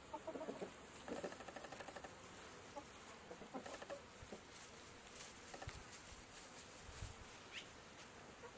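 Chickens clucking quietly, with short rapid runs of clucks about a second in and again near four seconds in.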